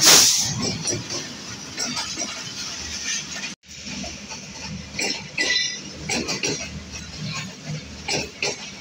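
Ambient sound of a railway platform during a station stop: scattered clinks, taps and knocks, with a short loud burst of hiss at the start.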